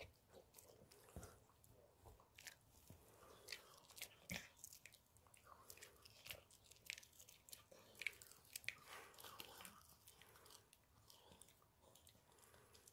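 Yorkshire terrier chewing a hard dog treat close to the microphone: faint, irregular crunches and clicks of teeth biting through it.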